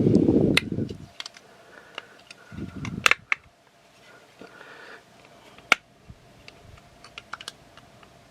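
Scattered sharp plastic clicks and taps from a jointed plastic toy robot's parts being handled and posed, irregular and a few per second at most, with a dull low bump at the start and a softer one about two and a half seconds in.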